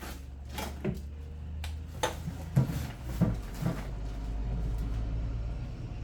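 A series of light knocks and clicks from parts and tools being handled, about seven in the first four seconds, over a steady low hum.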